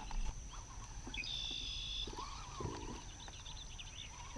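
A faint animal call: one buzzy, high note lasting under a second, a little after a second in, followed by a few fainter short calls, over a steady low rumble.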